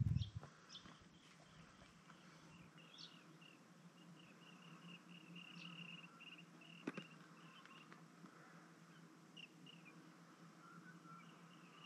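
Faint bush ambience: small birds chirping and calling, with runs of rapid high chirps, over a steady low hum. A single sharp tap comes about seven seconds in.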